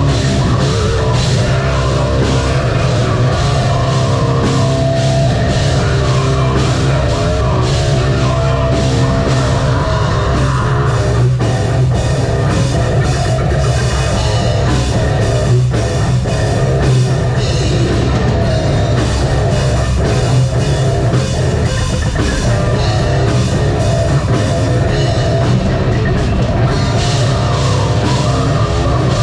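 Live metalcore/nu-metal band playing loud, with heavy distorted guitars and a pounding drum kit.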